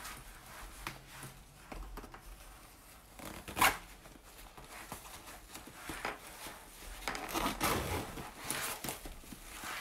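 Backpack zipper being drawn along and fabric rustling as the bag is handled, in short intermittent scrapes. There is one sharp, louder sound a little over a third of the way in, and a busier run of scrapes in the last third.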